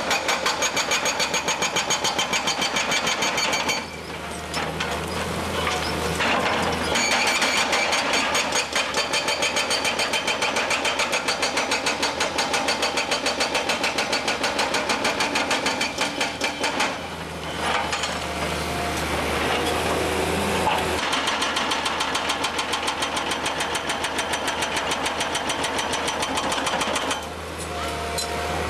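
FINE 20 TOP hydraulic breaker on a Komatsu PC240LC excavator hammering rock with rapid, even blows. It stops three times for a few seconds, leaving the excavator's diesel engine hum.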